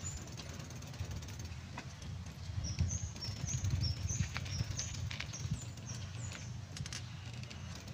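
A small bird chirping a quick series of short, high notes through the middle of the clip, over a steady low rumble and light footsteps on a paved path.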